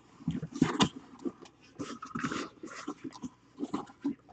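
Mini helmet box and its packaging being handled and opened: a run of short, irregular scrapes and rustles.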